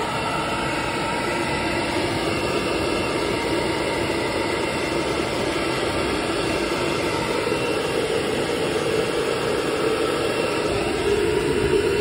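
Blow dryer running steadily, blowing on a miniature dachshund's fur as it is combed; it gets a little louder near the end.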